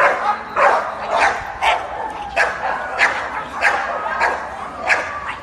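A dog barking over and over in a steady rhythm, about ten sharp barks, roughly one every half second or so.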